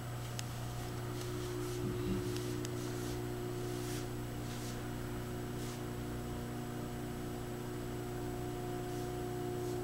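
Steady low electrical hum, with a few faint clicks early; a set of steady higher tones joins it about a second in.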